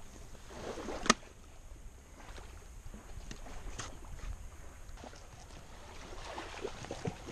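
Fillet knife slicing and scraping through a whitefish fillet on a plastic box lid, with small scattered taps and one sharp click of the blade about a second in.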